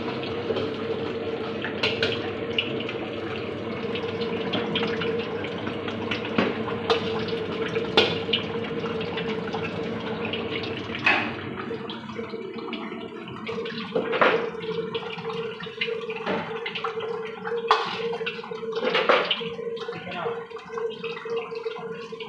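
Soup boiling and sizzling in a steel wok over a high gas flame, with a steady hum under it. A ladle clanks sharply against the wok now and then, more often in the second half.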